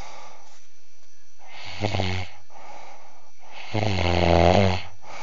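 A man snoring with the microphone held close to his nose: two snores, a short one about two seconds in and a longer, louder one about four seconds in.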